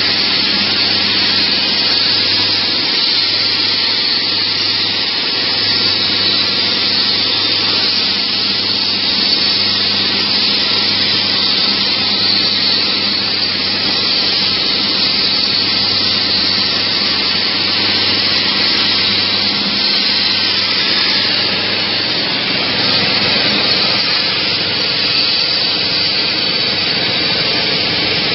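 CNC plasma cutter's arc cutting metal: a loud, steady hiss with a low hum underneath, unbroken throughout.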